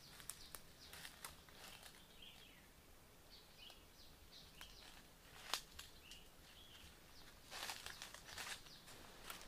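Quiet footsteps crunching through dry leaves and twigs on the forest floor, with a single sharp snap about halfway and a louder patch of rustling and crackling near the end. A few faint bird chirps sound in between.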